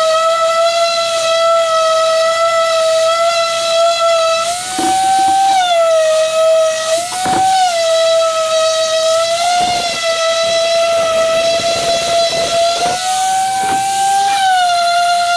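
Electric power sander running steadily on a wood cabinet with a high whine and the scratch of abrasive on wood. Its pitch rises briefly twice as the pressure on the pad eases.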